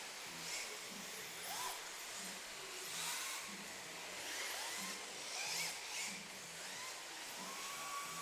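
Small electric motors of RC drift cars whining, each whine rising and falling in pitch about once a second as the throttle is worked, over a steady hiss.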